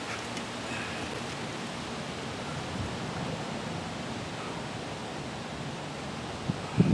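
Steady hiss of wind and river water outdoors. Near the end, wind starts buffeting the microphone in loud low bumps.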